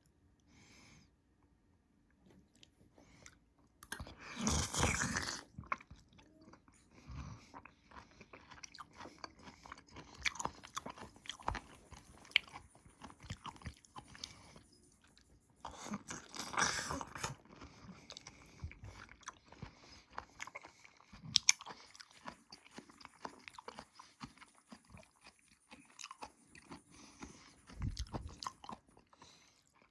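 A person eating close to the microphone: steady chewing with many small clicks, and louder bites about four seconds in and again around sixteen seconds.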